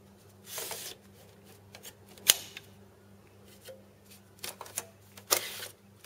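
Hot-swap drive tray of a server chassis being handled: a few short sliding scrapes and clicks of the tray and its latch handle, with one sharp click about two seconds in.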